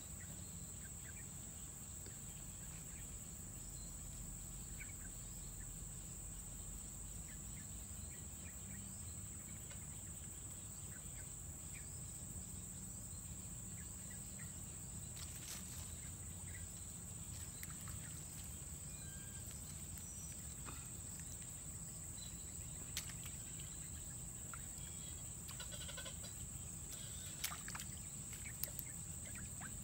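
Steady, high-pitched chirring of insects, unbroken throughout, over a low outdoor rumble, with a few faint clicks in the second half.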